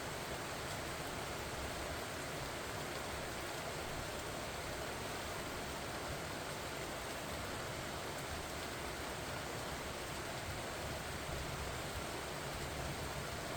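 Rain falling steadily on pumpkin vines, an even hiss with no single drops or other events standing out.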